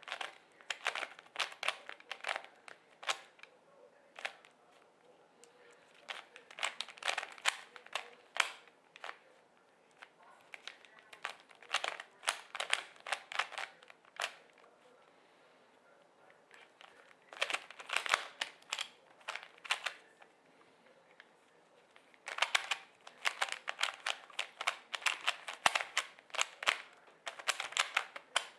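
Plastic 3x3 Rubik's cube being turned by hand: rapid clicking and clacking of the layers turning, in runs of quick turns separated by pauses of about two seconds.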